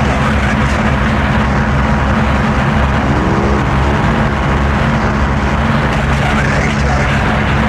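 Power electronics noise: a loud, dense wall of noise over a flickering low drone, with a few short rising sweeps about three seconds in and a higher rising one near the end.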